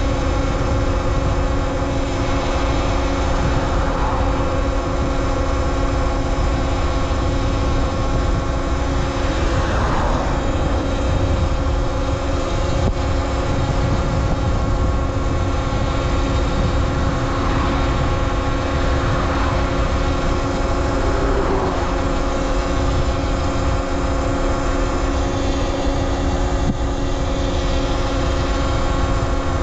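Talaria Sting R MX4 electric dirt bike's motor whining as it is ridden. The whine rises and falls in pitch with the throttle several times over a steady low rumble.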